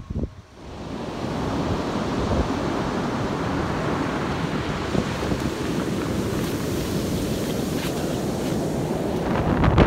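Surf breaking and washing up a sandy beach: a steady rushing that builds up about a second in, with wind on the microphone.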